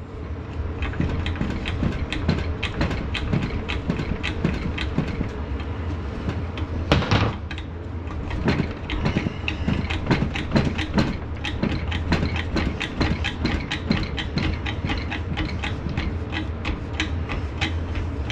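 Ratchet wrench clicking in quick, regular strokes as it is worked back and forth to back out a broken, rusted bolt from a tractor manifold, with one louder clank about seven seconds in. A steady low hum runs underneath.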